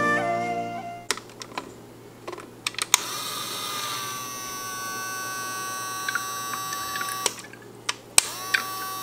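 Battery-powered toy coffee machine's small motor running with a steady whine, switched by clicks of its plastic push button. The whine cuts off about seven seconds in, followed by a few clicks, and starts again near the end.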